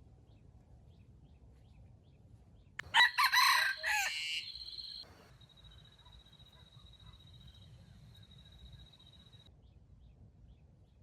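A wild junglefowl rooster crows once, a short loud crow of about two seconds that cuts off abruptly.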